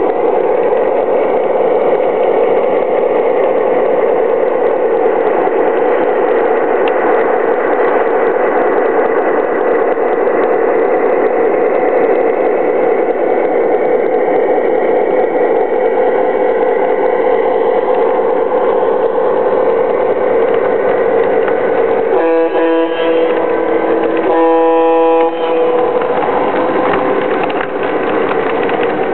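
Lionel Legacy O-gauge New York Central F7 diesel model train with passenger cars rolling past on three-rail track: a steady running noise from the wheels and the locomotives' electronic diesel sound. About three-quarters of the way through the locomotive's sound system gives two horn blasts, a short one and then a longer one.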